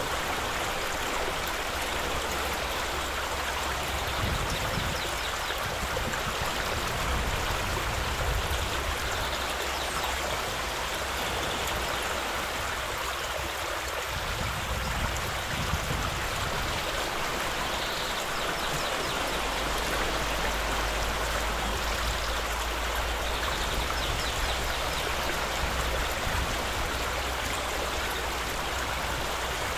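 Shallow river running over gravel and stones, a steady rushing of water, with a low rumble beneath it that grows heavier about two-thirds of the way through.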